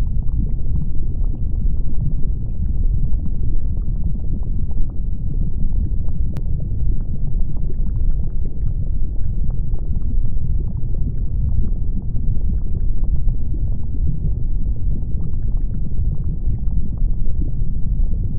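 Erupting lava ambience: a deep, steady rumble with faint small crackles scattered all through it and one sharper click about six seconds in.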